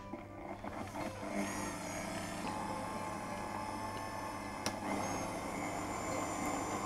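Electric stand mixer running steadily, its motor beating cake batter. A single sharp click about two-thirds of the way through.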